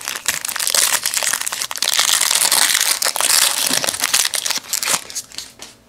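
Foil wrapper of a 2003 Upper Deck MVP football card pack being torn open and crinkled by hand, a dense crackling that lasts about five seconds and then dies down.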